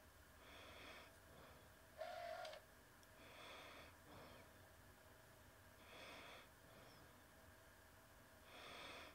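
Near silence with a person's breathing close to the microphone: slow, regular breaths every two to three seconds, and a brief hum-like sound about two seconds in.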